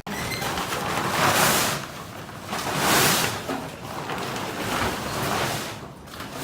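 Wind blowing across the microphone in gusts, a rushing noise that swells about a second and a half in and again around three seconds in.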